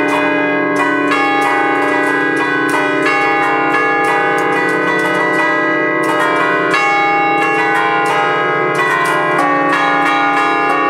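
Five church bells in D-flat, cast by the Ottolina brothers of Seregno in 1932, played from a baton keyboard: quick clapper strikes, several a second, picking out a tune, each stroke ringing on under the next.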